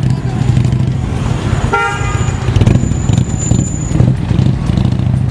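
Cruiser motorcycle engines running with a steady low rumble in slow city traffic, and a short vehicle horn toot about two seconds in.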